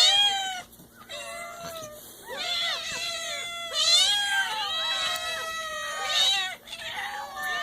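Several cats meowing at once, their calls rising and falling and overlapping one another, with short lulls in between.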